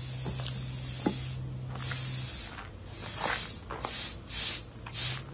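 Compressed air hissing from a tire inflator. It blows steadily over a low motor hum for the first second or so, then comes in about five short bursts as the air is switched on and off.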